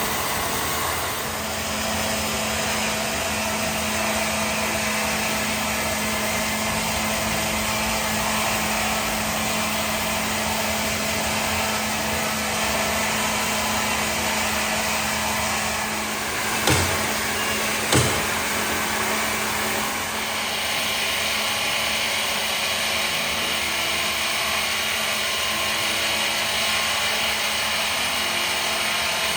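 A motor-driven machine running steadily with a continuous whirring drone. Two sharp knocks come about a second apart midway.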